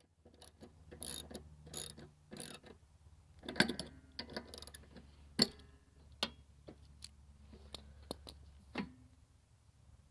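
Metal tools and mower parts being handled: irregular clinks, clicks and knocks, some with a short metallic ring, the loudest about three and a half and five and a half seconds in, over a faint low steady hum.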